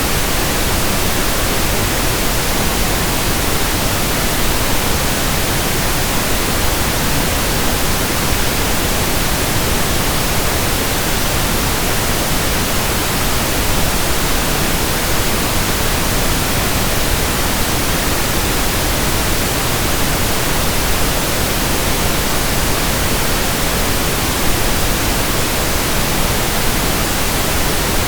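Steady pink noise: an even, unchanging hiss spread across all pitches, with no rhythm or events.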